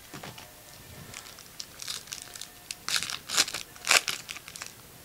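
Shiny foil trading-card pack wrappers crinkling and tearing as packs are ripped open. It comes as a quick run of sharp crackles from about two seconds in, loudest near the end.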